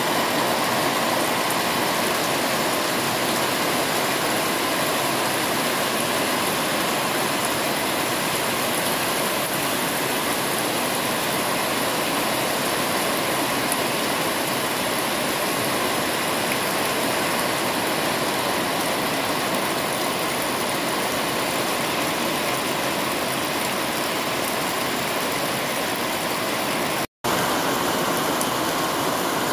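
Heavy rain falling steadily on garden foliage, with water streaming off a roof edge. The sound cuts out for an instant near the end.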